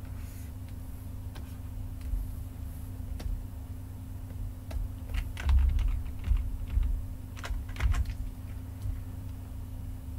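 Computer keyboard keys pressed in scattered clicks, bunching into short flurries about halfway through and again a couple of seconds later, over a low steady hum.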